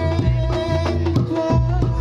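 Reog Ponorogo gamelan music: drums beating a quick rhythm with heavy low strokes under a held melody line.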